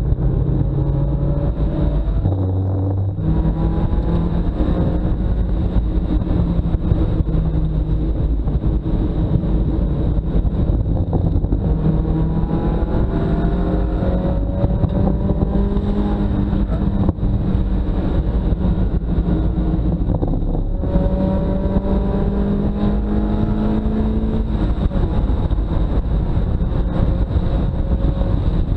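2000 Mazda Miata's four-cylinder engine at full throttle on track, pulling up through the revs again and again. The pitch breaks and drops a handful of times as the driver shifts or lifts, then climbs once more.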